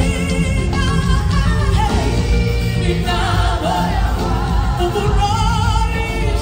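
Live gospel music: singers holding notes with vibrato over a full band.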